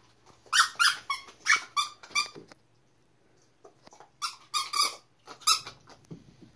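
A dog chewing a loose toy squeaker, squeezing out two quick runs of short, high squeaks, about six and then, after a pause, about four more.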